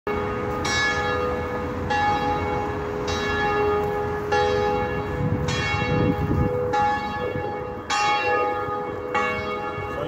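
Liverpool Metropolitan Cathedral's bells, hung in open slots in the belfry, ringing one after another, a new stroke about every 1.2 seconds. Each stroke rings on under the next.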